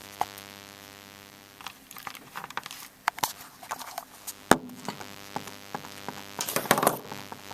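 Scattered plastic clicks and knocks of a battery and battery cover being handled and fitted into a home phone base unit, with one sharp click about halfway through and a cluster of rattling clicks near the end. A steady hum runs underneath.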